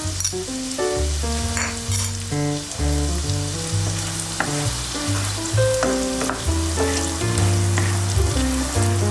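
Flour-dusted chicken fillets sizzling as they fry in a pan, with a steady hiss, under background music with a bass line.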